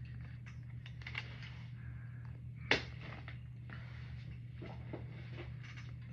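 Handling noise from an AR pistol being moved and set aside: one sharp click about two and a half seconds in and a few faint taps and rustles, over a steady low hum.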